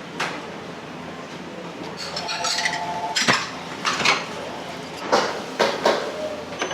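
Dishes and metal cookware clattering in a restaurant kitchen: a run of sharp knocks and clinks, with a short metallic ring in the middle.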